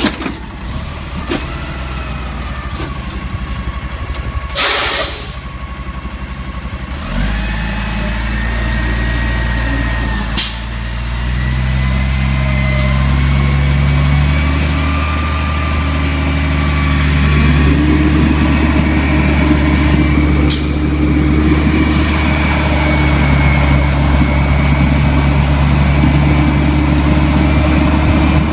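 Automated side-loader garbage truck running with its engine revved to drive the hydraulic arm. The engine steps up in speed about seven seconds in and again a little past halfway, with a hydraulic whine over it. A sharp burst of air hiss comes about five seconds in, and shorter sharp releases follow later.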